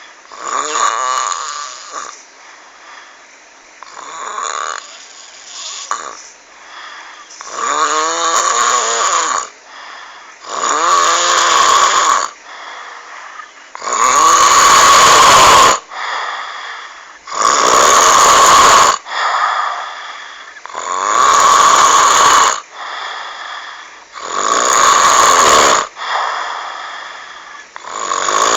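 A person snoring in a croaking, frog-like rasp, one loud snore about every three and a half seconds. The first couple are softer, and they grow louder after the first few seconds.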